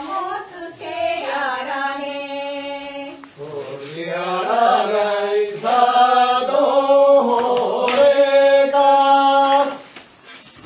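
Voices singing a slow Japanese folk dance song in long held, wavering notes. The singing stops shortly before the end.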